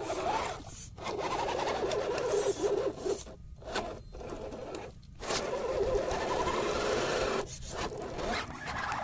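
RC scale crawler's small electric motor and geared drivetrain whining under load as the mud-caked tires churn through thick wet mud. It cuts out briefly a few times.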